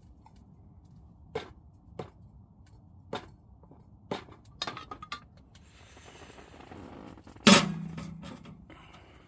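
Hand-handling sounds of hard objects: a few separate light knocks and clinks, a short rustle, then one loud clunk with a brief low ring that fades, about three-quarters of the way in.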